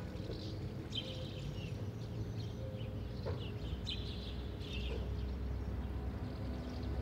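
Birds chirping in short, scattered calls over a low, steady rumble of street ambience.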